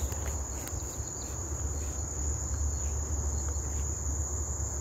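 A steady, high-pitched chorus of insects trilling without a break, over a low rumble.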